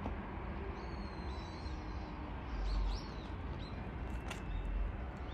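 Birds chirping in short, high whistly notes over a steady low rumble.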